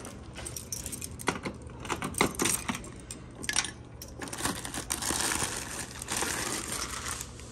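Keys jangling and a metal PO box door being unlocked and opened, with a series of sharp clicks and clinks. About five seconds in comes the crinkling of a plastic poly mailer being pulled out of the box.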